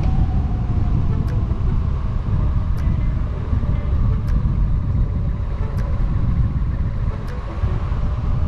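Onyx RCR electric motorbike riding at speed: a steady low rush of wind buffeting on the bike-mounted camera's microphone, with tyre and road noise and a faint motor whine that drifts up and down in pitch.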